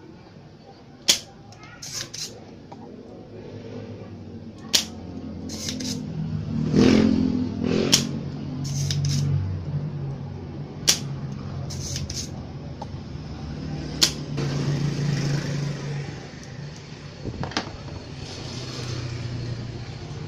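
Spring-loaded desoldering pump (solder sucker) firing with sharp clicks, about a dozen at irregular intervals, as solder is sucked from the volume-control joints. A low engine drone rises and falls in the background.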